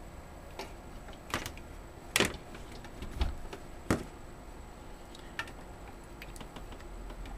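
Scattered clicks and knocks of a laptop power cord and AC adapter being handled and plugged together, the loudest a sharp click a little after two seconds in.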